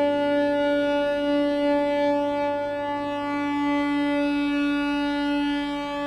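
Synthesizer running a self-generating Krell patch: a steady, sustained drone of many layered tones.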